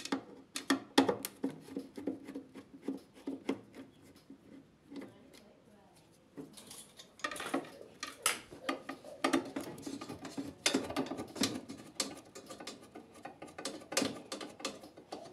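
Clattering and knocking of plastic and metal parts and a screwdriver being handled inside an opened washer dryer's cabinet, in two busy stretches with a quieter lull about four to seven seconds in.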